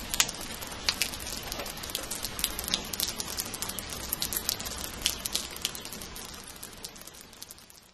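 Fine, steady rain: a dense patter of individual drops over a soft hiss, fading away in the last couple of seconds.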